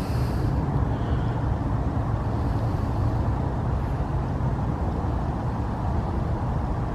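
Steady low rumble of a motor vehicle running, even throughout with no distinct events.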